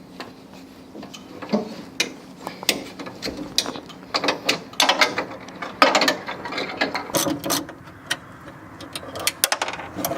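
Ratchet wrench clicking in short, irregular runs as a nut or bolt is turned, with sharp metallic clinks near the end.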